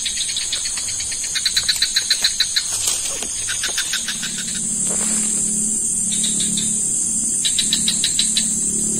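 Night insects in a swamp: a steady high-pitched drone under runs of rapid chirping pulses, about eight a second. From about four seconds in, a low steady hum joins them.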